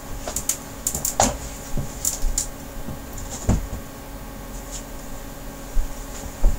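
Scattered light knocks and clicks of something being handled, over a low steady hum.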